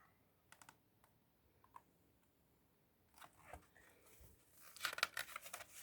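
Faint clicks, then paper rustling and crackling, loudest about five seconds in, typical of a picture book's pages being handled and turned.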